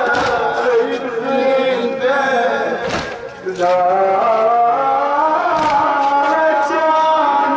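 A man chanting an Arabic latmiyya, a Shia mourning lament, into a microphone, his voice held in long melodic lines that break off briefly about three seconds in. A few sharp slaps cut through it, the mourners striking their chests.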